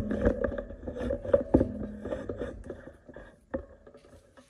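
Handling noise as a hand-held camera is moved: irregular knocks and rubbing over a steady low hum. It dies away after about three seconds.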